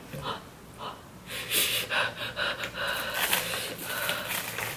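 A person panting and gasping through an open mouth, a run of quick, airy breaths starting about a second in: the mouth is burning from very spicy Samyang fire noodles.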